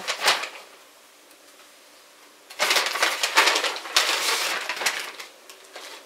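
Paper bag crinkling and rustling as it is handled and opened: a brief rustle at the start, then about three seconds of dense crinkling in the middle.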